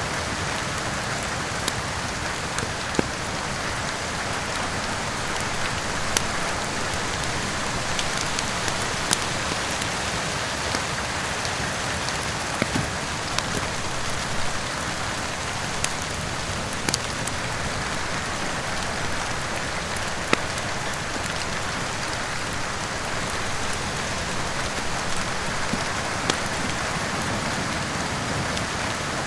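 Steady rain falling, with irregular sharp crackles and pops from a wood fire in a fireplace.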